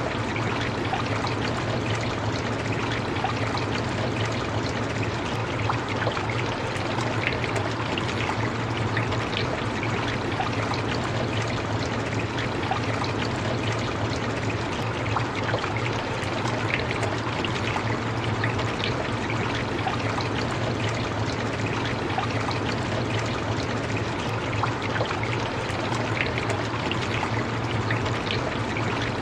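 Steady rain: a constant even hiss flecked with many small drop ticks, over a low steady hum, with no change or thunder.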